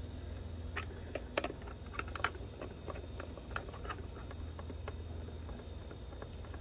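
Irregular small clicks and ticks of a hand screwdriver turning a screw and washer into the plastic recoil starter cover of a Briggs & Stratton lawn mower engine, most of them in the first four seconds.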